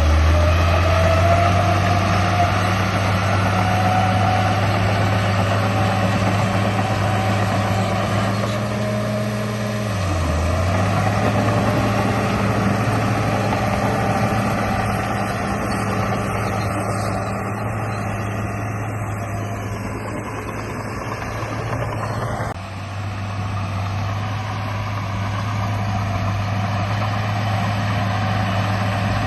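Steady engine-like drone from a radio-controlled bulldozer running, with a brief drop in pitch about ten seconds in and an abrupt change a little after twenty seconds.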